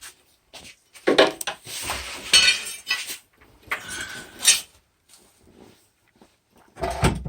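Metal-on-metal clinks and knocks from tools working on the car's rear subframe bolts. There are a few sharp strikes about a second in, a rough scraping stretch after them, and more clinks around four seconds in.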